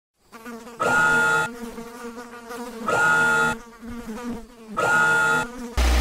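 Three short buzzing tones, each under a second, about two seconds apart; just before the end a steady low hum starts.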